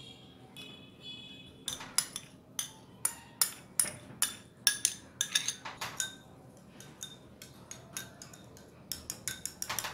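Metal teaspoon clinking against a small glass bowl while stirring raspberry solution into gelatin: quick, irregular taps that start a couple of seconds in, thin out briefly, then come thick again near the end.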